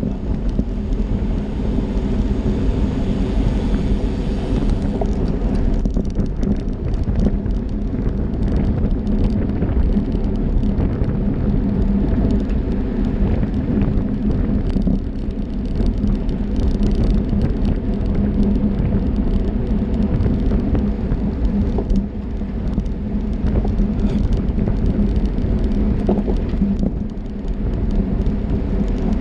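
Steady wind rumble on a bicycle-mounted camera's microphone, mixed with the hum of tyres on tarmac and scattered small clicks, as a road bike rides in a racing pack.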